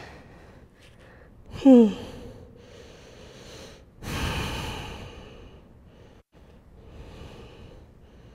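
A woman breathing audibly: a long, noisy exhale about four seconds in that fades over a second, and a softer one near seven seconds. A brief vocal sound falling in pitch comes about two seconds in and is the loudest moment.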